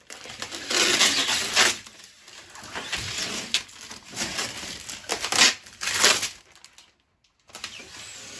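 Squeegee dragging ink across a silkscreen mesh in several scraping strokes, the loudest about a second in.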